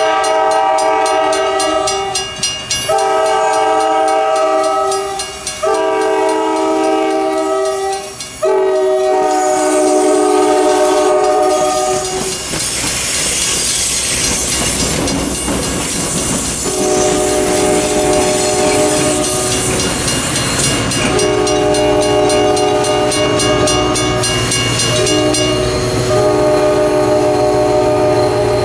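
EMD F40PH locomotive air horn sounding long blasts for the crossing while the crossing's mechanical bells ring. About twelve seconds in, the commuter train rolls through the crossing with loud wheel and engine noise. The horn then sounds several more long blasts as the train moves on.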